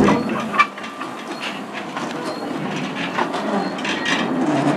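Small 483 mm (19-inch) gauge steam train, a locomotive and one carriage, rolling slowly along the track. Its wheels give irregular clicks and knocks over the rail joints, the sharpest about half a second in.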